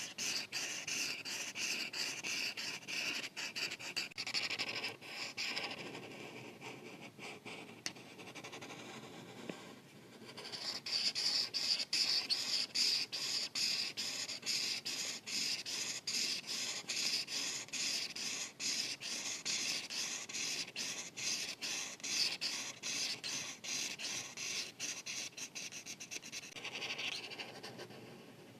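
Art marker tips stroking quickly back and forth on paper, a steady rapid scratchy rubbing while an area is filled in, lighter for a few seconds about 4 seconds in, then firmer again from about 10 seconds in.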